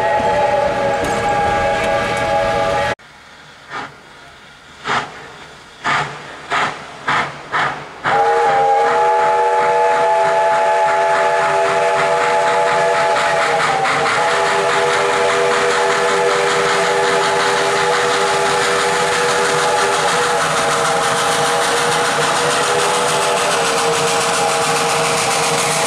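Narrow-gauge Baldwin steam locomotive's chime whistle: a held chord of several notes, then after a cut a quick run of short distant toots, then one long blast held for the rest, dipping briefly in pitch about halfway. Under the whistle, the hiss of steam and exhaust grows louder as the locomotive approaches.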